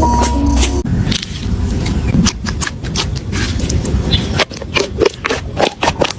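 Slime being squished and worked by hand: a quick, irregular run of wet clicks and pops. Backing music cuts off about a second in.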